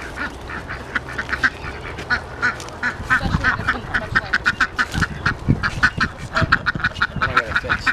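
Farm ducks quacking in a fast, steady run of short calls, several a second. A few dull knocks come about halfway through as a wooden arbor frame is laid down.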